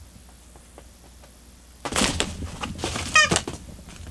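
A domestic cat pouncing on and batting at a stuffed fabric stick toy on carpet, with a rustling scuffle starting about two seconds in. Partway through comes one short, wavering cat call.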